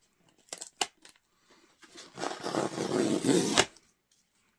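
Tear strip being ripped along a cardboard mailer: a few light handling clicks, then a rough tearing sound about two seconds in that lasts under two seconds and stops abruptly.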